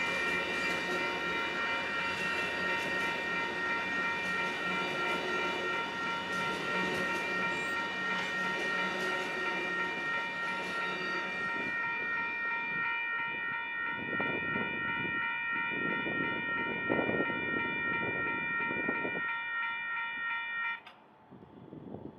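WCH Type 3 electronic grade-crossing bell ringing steadily while a passenger train's bilevel cars run past on the rails. The train noise fades out about halfway through, with a few swells of rushing noise after it. The bell cuts off suddenly near the end as the crossing gates begin to rise, the sign that the crossing is clearing.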